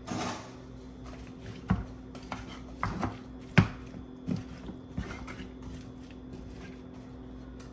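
Wooden spoon stirring chunks of raw vegetables and goat meat in a metal roasting pan, with scattered knocks and scrapes against the pan every half second or so.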